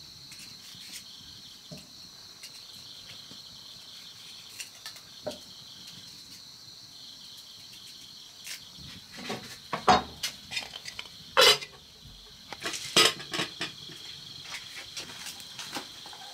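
Insects chirring steadily and high-pitched. Between about nine and thirteen seconds in, kitchenware clinks and knocks several times, the loudest three sharp knocks standing out above the chirring.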